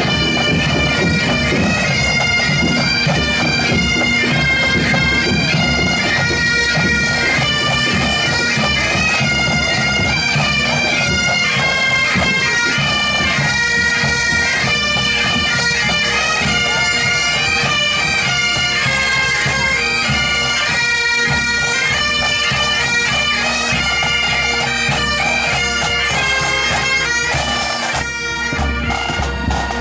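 Pipe band of Great Highland bagpipes playing a marching tune: a stepping chanter melody over a steady drone.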